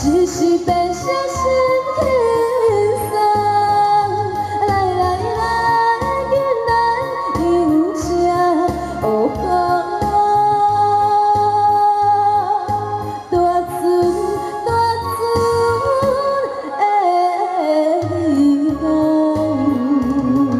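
A woman singing into a handheld microphone over backing music with a regular bass beat, both amplified through the hall's sound system. The bass beat drops out for about a second near the end.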